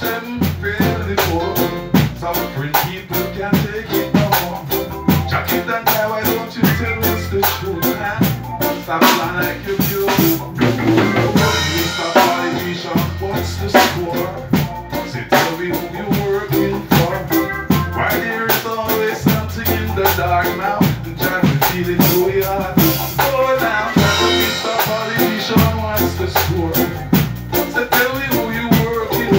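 Live band playing a song: drum kit keeping the beat over a repeating bass line, with keyboard.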